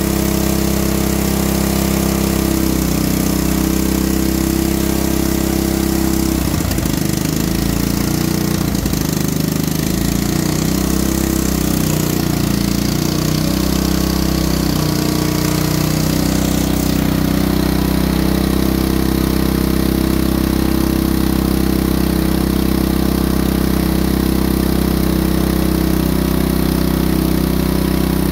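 Portable petrol generator's engine running steadily under electrical load. Its note wavers unevenly for a few seconds about a quarter of the way in, then settles again.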